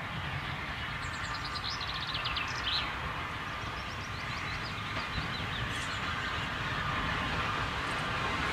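Steam train approaching in the distance, its sound growing slowly louder, with birds singing over it: a rapid trill between about one and three seconds in and more chirps around five seconds.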